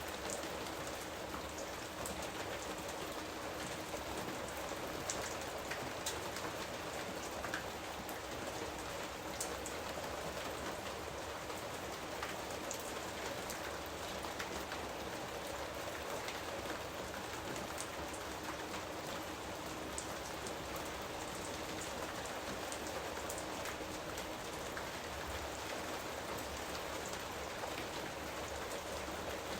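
Steady rain falling on a surface, an even hiss with scattered small drop ticks.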